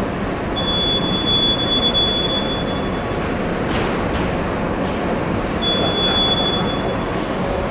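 Steady rumble of a metro train running in the station, with a high, steady wheel squeal twice: once for about two and a half seconds, then for about a second.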